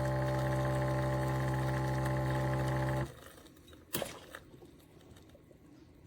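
Espresso machine running with a steady electric buzzing hum that cuts off suddenly about three seconds in, followed by a sharp click.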